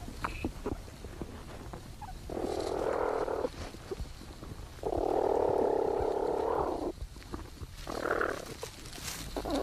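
Platypus mother and young in their nesting burrow, recorded by a microphone inside the burrow during suckling: scattered soft scratches and clicks, with three harsh, rasping sounds. The first lasts about a second, the second, the loudest, about two seconds in the middle, and a short one comes near the end.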